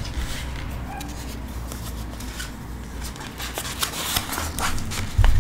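Rustling and crackling of a self-adhesive vinyl sheet and its paper backing being handled and peeled apart, busiest in the second half, with a dull thump near the end.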